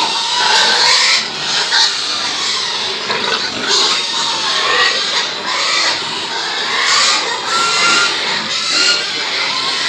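A crowded pen of pigs grunting and squealing together. The mix is loud and continuous, with short high squeals in the last few seconds.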